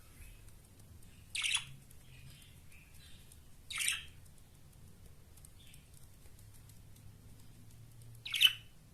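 Budgerigars calling: three short, sharp chirps, the last the loudest, with faint softer chirping between them.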